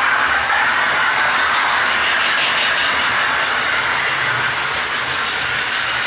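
Lionel's 1970s Electronic Mighty Sound of Steam module making a steady electronic steam-chuff hiss as a toy steam locomotive runs, with the rumble of toy trains rolling on the track underneath.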